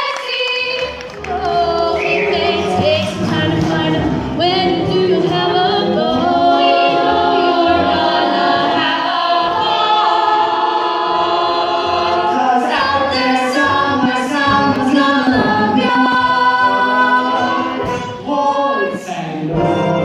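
Music: several voices singing together in sustained chords, like a small choir.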